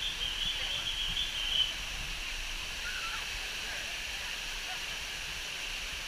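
Steady rushing and splashing of water over a cascading river waterfall, with faint voices of people in the water. In the first second and a half a brief high, thin call rises above the water.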